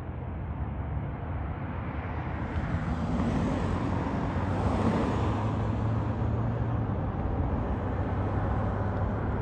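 Twin-engine jet airliner on final approach, its engine noise a rushing sound that grows steadily louder as the plane nears.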